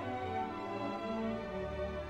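Slow background music with long held notes.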